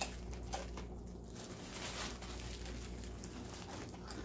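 Quiet crunching and crinkling as Andy Capp's Hot Fries are eaten from the hand and the plastic snack bag is handled, with a sharp click at the start and another about half a second in.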